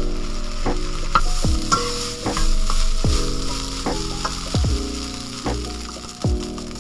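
Fried rice sizzling in a hot wok while a metal spatula and spoon stir and scrape it, over lo-fi background music with a steady beat.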